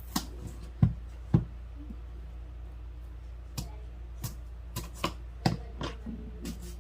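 Irregular knocks, taps and clicks of kitchen things being handled and set down, with two heavier thumps about a second in.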